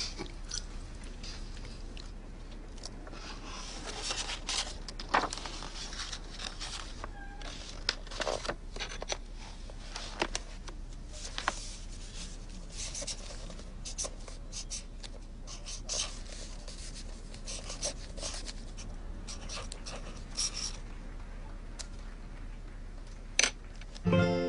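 Irregular small clicks and taps of small objects being handled close by, over a low steady hum, with one sharper click near the end.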